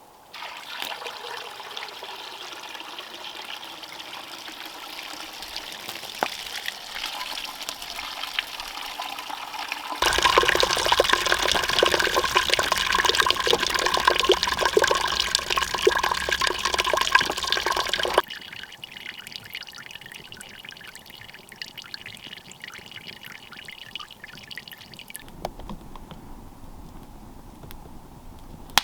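Water pouring and trickling, in a few separate stretches that cut in and out abruptly. The loudest pour runs from about ten to eighteen seconds in.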